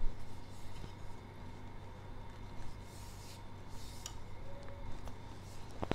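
Faint rubbing and handling noises from a newly unboxed tripod being turned over in the hands, with a sharp click near the end.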